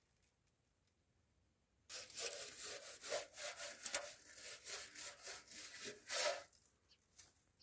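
A straw whisk broom sweeping a large round metal flatbread griddle in quick back-and-forth scratchy strokes, about three a second. It starts about two seconds in and stops about two-thirds of the way through. The griddle is being brushed clean before bread is laid on it.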